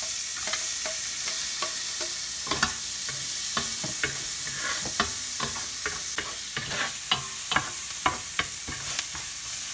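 Diced onion sizzling in hot oil in a stainless steel pot with browned pork and garlic, a steady frying hiss. From about two and a half seconds in, a spatula stirs and scrapes through it, knocking on the pot about twice a second.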